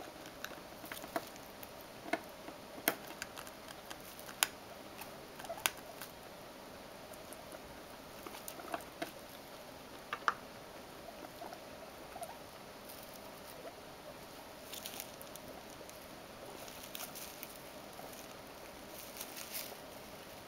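Guinea pigs munching and rooting through hay and wood shavings, making scattered sharp crunches and clicks, with brief bunches of rustling in the second half.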